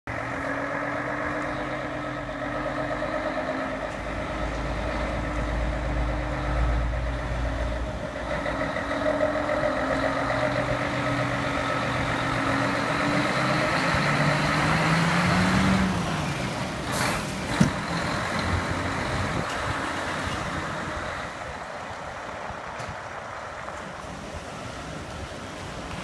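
Mercedes-Benz concrete mixer truck's diesel engine running, its pitch rising as it pulls away past about two-thirds of the way in, followed by a short sharp air-brake hiss; the engine then fades.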